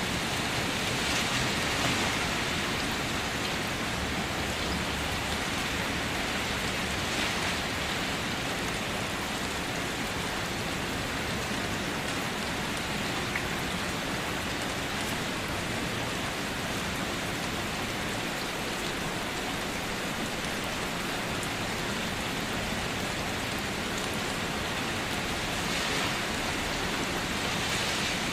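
Steady rain falling on surfaces, an even hiss that swells slightly a few times.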